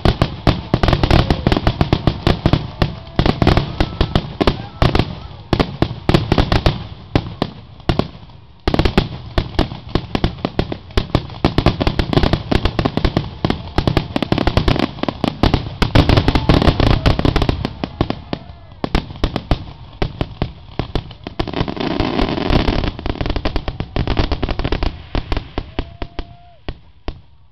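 Fireworks finale: aerial shells bursting in rapid, overlapping barrages of booms and crackles, with a brief lull about eight seconds in and a quieter stretch around twenty seconds. It stops abruptly near the end.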